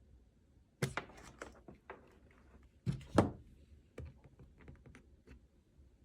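A series of irregular knocks and clicks, the loudest a pair of knocks a little after three seconds in, followed by several lighter ticks.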